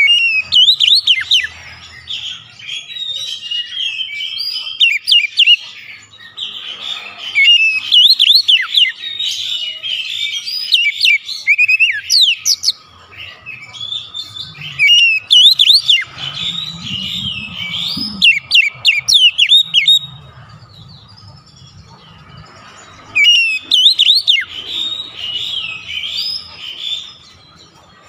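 Oriental magpie-robin singing in loud bursts of rapid, varied whistles and chatter with sharp up-and-down glides, each burst a second or two long with short pauses between them.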